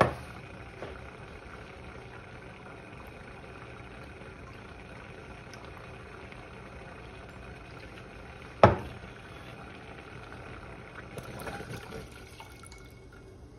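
Soy sauce being poured, ending with dark sauce poured from a glass measuring cup into a saucepan of steaming sake and mirin near the end, over a steady hiss. A sharp knock comes at the very start and another, the loudest sound, about two-thirds of the way through.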